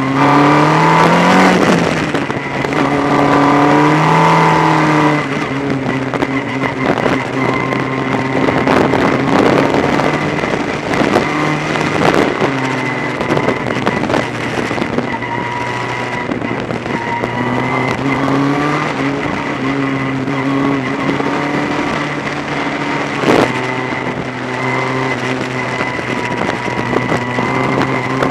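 Formula Ford race car engine heard on board, revving up and dropping through gear changes twice in the first five seconds, then running at steadier, lower revs with wind rush and a steady high whine. A sharp knock about 23 seconds in.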